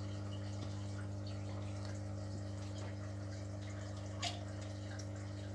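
Aquarium equipment running: a steady low hum from the pumps under bubbling, trickling water from the air stones and sump filtration. One small tick about four seconds in.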